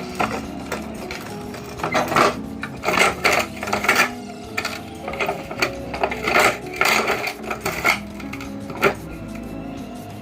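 Meat grinder working on glass marbles: loud, hard clattering bursts in two clusters, then one more, over background music.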